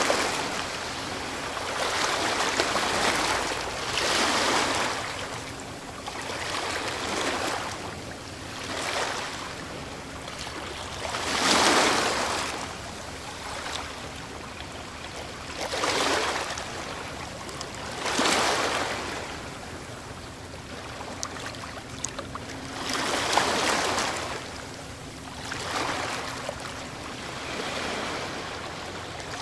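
Ocean waves breaking on a shore: a rushing surf that swells and falls away every few seconds, with the biggest breaks about 12, 18 and 23 seconds in.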